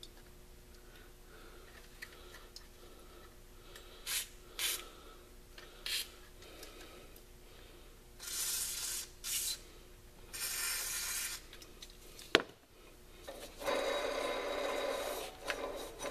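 Aerosol spray lubricant fired through its red straw in short hissing bursts, two of them about a second long around eight and ten seconds in, to oil a stuck pulley so it will come off. A sharp click about twelve seconds in, then a longer stretch of noisy hiss and rubbing near the end.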